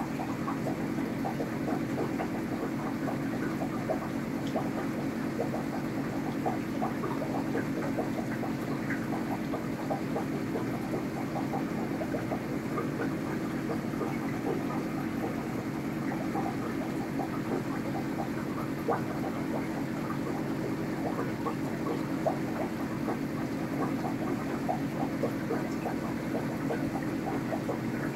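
Aquarium pump humming steadily, with a constant fine crackle of water bubbling and trickling.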